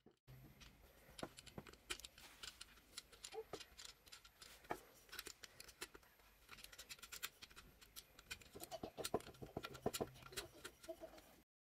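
Faint, irregular clicks and taps, with faint voices in the background; the sound cuts off abruptly near the end.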